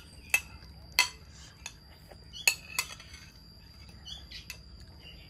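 Sharp clinks of a metal spoon against a white ceramic bowl, about four over a few seconds, with birds chirping and a steady high-pitched whine behind.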